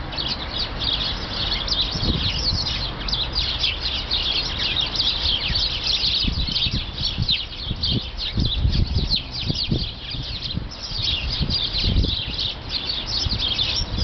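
A flock of small birds chirping and twittering densely and without pause, hidden in a bare shrub. Irregular low rumbling thumps on the microphone run underneath.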